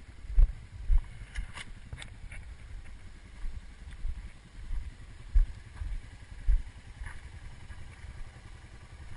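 Irregular low thumps and rumble of wind and bumping on a body-worn action camera's microphone, with a few sharp clicks.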